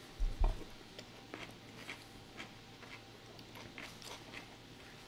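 A person chewing a bite of dill-pickle sandwich, with soft crunches about every half second. A dull low thump or two comes near the start.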